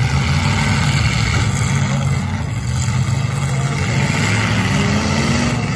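Several demolition derby cars' engines running and revving together, a dense, steady low drone with faint rising and falling pitch.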